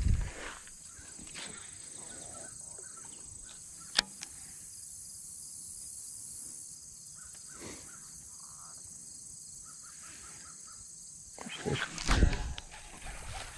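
Quiet pondside ambience with a steady high insect hum. A single sharp click about four seconds in, and a short burst of rustling handling noise near the end.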